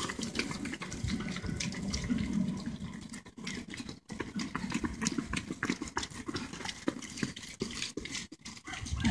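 Running footsteps of several runners on a paved path, passing close by as a rapid patter of many short steps, thinning out briefly about three seconds in and then building again as the next group approaches.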